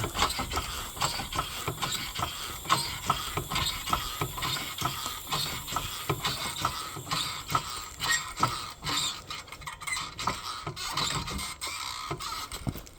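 Car jack being worked, a rapid, irregular run of mechanical clicks and knocks, as the car is raised or let down onto the tire to break its bead.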